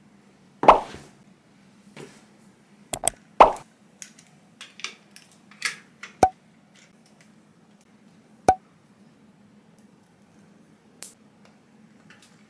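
Scattered light taps, knocks and plops of small objects being handled and set down in a small room, two of them sharp clicks with a brief ring, over a faint steady low hum.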